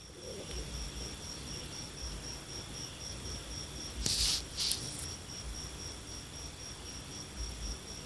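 A cricket chirping in the background: a high, steady trill in evenly spaced pulses. About four seconds in come two short hisses.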